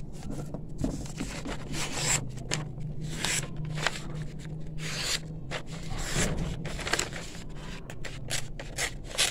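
Sheet of ruled notebook paper handled by hand: folded, creased flat and rubbed against a plastic mat, with irregular rustling and scraping.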